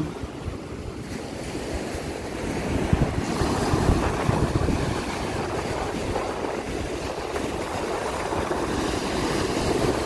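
Baltic Sea surf breaking and washing up a sandy beach, louder from about three seconds in, with wind buffeting the microphone.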